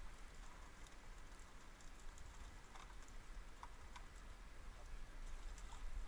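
Plastic buckets and a wet fish net being handled on a metal grate: faint, scattered taps and clicks over a steady low rumble.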